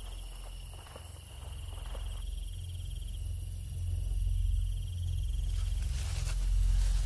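Crickets chirring steadily in the night, over a low, steady rumbling drone that slowly grows louder.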